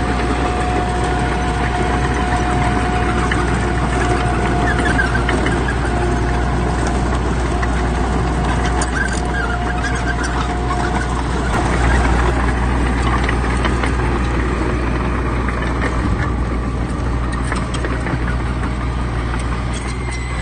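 Heavy diesel earthmoving machinery running steadily with a deep rumble. A thin steady whine sits over it for about the first half, and the engine swells a little about twelve seconds in.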